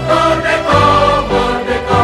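Background music: sustained choral-style voices over a steady bass line, with the chord changing about every half second to a second.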